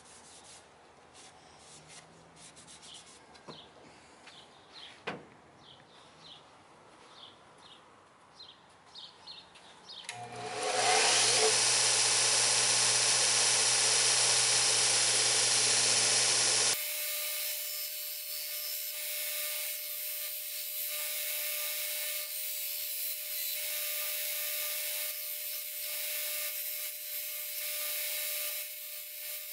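A bench belt sander running, used to grind a steel axe head: faint handling sounds at first, then about ten seconds in the sander runs loud and steady with a low hum, and a few seconds later the sound changes suddenly to a steadier, softer running with a grinding hiss and a held tone.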